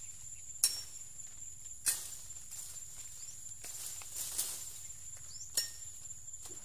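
A steady, high-pitched insect drone, likely crickets or cicadas, runs underneath. Three sharp clicks or knocks stand out, the first two close together and the third a few seconds later.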